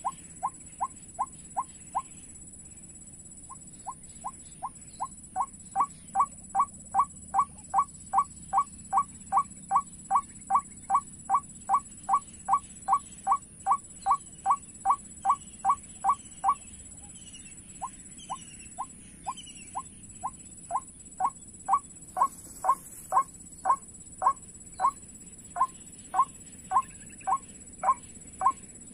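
White-breasted waterhen call played as a trapping lure: a monotonous run of short 'kwak' notes, about three a second. There is a short break about two seconds in and another about sixteen seconds in, and the notes grow louder after the first break.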